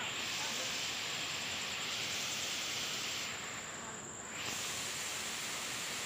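Waterfall pouring over rocks into a pool: a steady rush of falling water, briefly duller a little past the middle, with a thin steady high-pitched whine above it.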